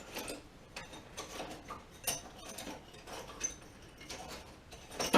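Scattered light clicks and taps of small metal hand tools being handled on a workbench, irregular and without a steady rhythm, a few a little louder than the rest.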